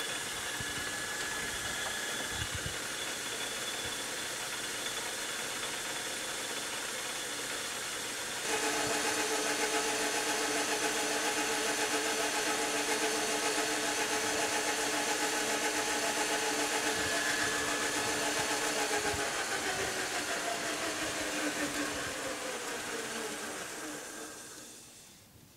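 Metal lathe running, its spinning steel drill-rod workpiece polished with an abrasive pad. It gets louder about a third of the way through, then winds down with falling pitch and fades out near the end.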